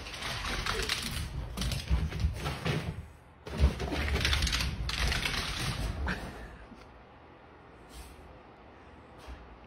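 A small dog's claws scrabbling while a rug scrapes and rustles over a hardwood floor, making a rapid clattering noise with dull thumps. It comes in two spells with a brief break about three seconds in and dies down about six seconds in.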